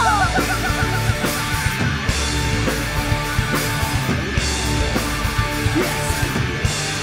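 Live ska-punk band playing loud: electric guitars, bass and drum kit, with a run of short falling notes near the start.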